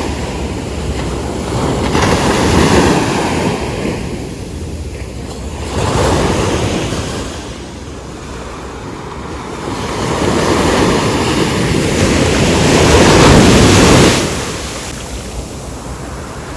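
Ocean surf breaking and washing ashore in repeated surges, with wind buffeting the microphone.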